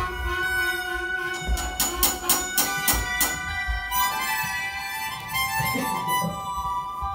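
Live band music: sustained reedy chords held under the whole stretch, with a quick run of sharp percussive hits about one and a half to three and a half seconds in.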